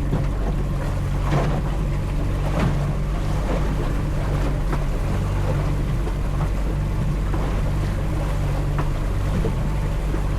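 A small boat's motor running steadily under way in bumpy, choppy water, a constant low hum with wind on the microphone and water slapping the hull, a couple of sharper slaps about one and a half and two and a half seconds in.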